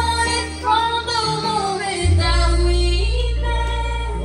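Music: a female voice singing a melody with vibrato over sustained bass notes. The bass shifts to a new note about halfway through.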